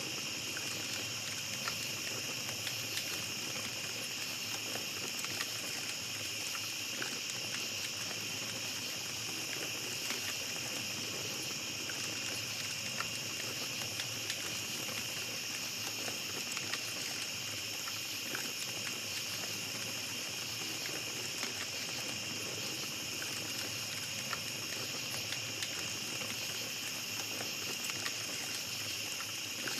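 Night insects, crickets, trilling in a steady high chorus, with a small campfire crackling in scattered sharp pops.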